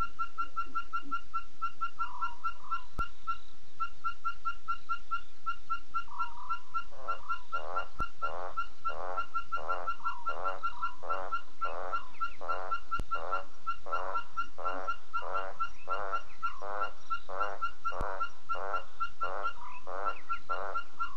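Night-time wild animal calls: a steady, rapid pulsed chirping, about four to five chirps a second, joined about six seconds in by a fast series of repeated wavering calls, roughly one and a half a second.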